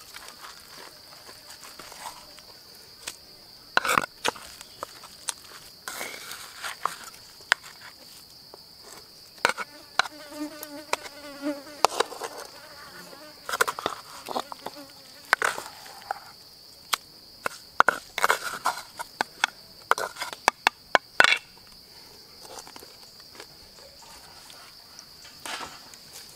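Steady high-pitched drone of insects, with scattered clicks and knocks of a wooden spoon stirring and scraping in a stone mortar.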